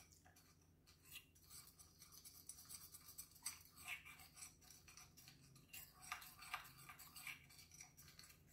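Metal spoon faintly scraping and tapping against the sides of a mixing bowl in quick, irregular strokes, stirring a sauce.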